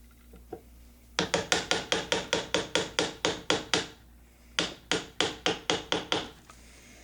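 Hammer tapping a chisel in quick, sharp strikes, about six a second, chipping down wooden dowel plugs in a gun stock. Two runs of taps with a short pause between.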